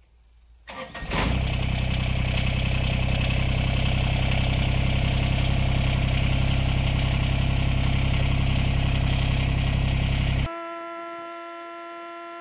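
Kubota BX25D compact tractor's three-cylinder diesel engine cranking briefly, catching, and running steadily. About ten seconds in, the engine sound cuts off abruptly, leaving a quieter steady tone.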